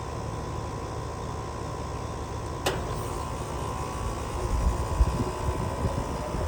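Outdoor air conditioner condensing unit running with a steady fan-like hum. There is one sharp click about two and a half seconds in, and a low rumble builds after it.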